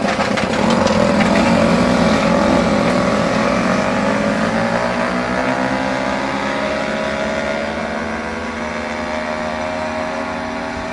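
Several two-stroke mopeds racing away together from a standing start. Their engines are loud at first, then slowly fade as they pull away, with their pitch climbing steadily.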